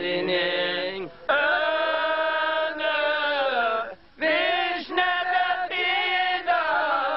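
An older man singing unaccompanied in long, drawn-out notes that waver and glide in pitch, pausing twice for breath.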